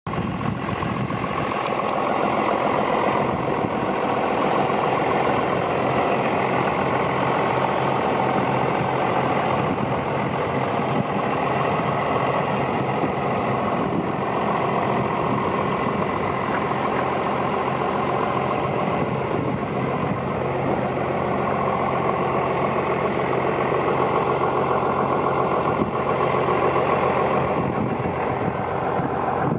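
1998 John Deere 6910 tractor's six-cylinder diesel engine idling steadily.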